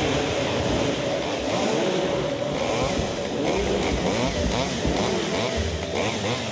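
Stihl chainsaw engine running, its pitch rising and falling again and again as the throttle is worked.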